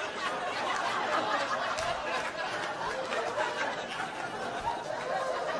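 Audience laughing: many voices at once in a steady wash of laughter.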